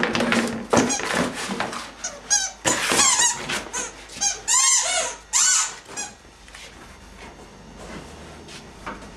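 A flurry of rapid high-pitched squeaks and squeals that glide up and down in pitch, densest from about two to six seconds in, then dying away to a low background.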